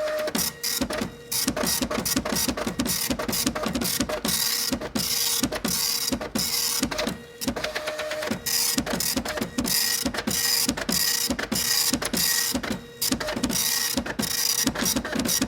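Computer printer printing: a rapid, uneven run of short mechanical buzzes over a steady hum, with brief pauses about a second in, midway and near the end.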